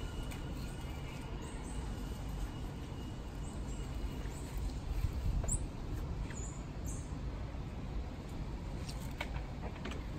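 Squirrel monkeys giving scattered short, very high-pitched chirps, some sliding down in pitch, over a steady low rumble.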